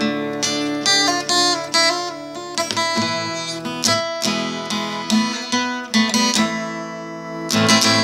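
Instrumental passage of a song played on acoustic guitar, notes picked one after another in quick succession, with no singing.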